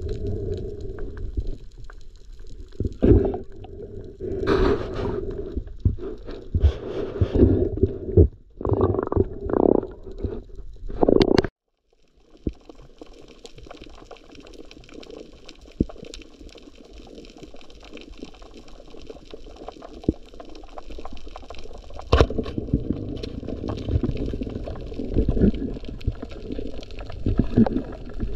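Muffled underwater sound heard through a camera housing. For about the first eleven seconds, water gurgles and sloshes in uneven bursts. After a sudden brief drop-out comes a steadier wash of water noise with faint scattered clicks.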